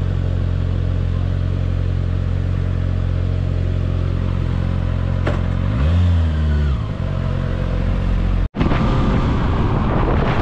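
Kawasaki ZX-6R inline-four engine idling steadily, with one quick throttle blip about six seconds in. Near the end the sound jumps to the bike under way, with engine and wind rush.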